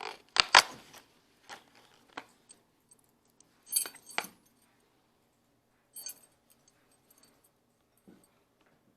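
Small metal puzzle pieces being handled: a few sharp clicks and knocks, then ringing metallic clinks about four seconds in and a lighter cluster of clinks around six seconds.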